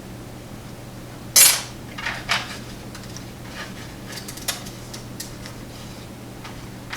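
Small metal parts of an American Lock Series 700 padlock being handled while it is taken apart: one sharp metallic clank about a second and a half in, then a few lighter clicks and clinks.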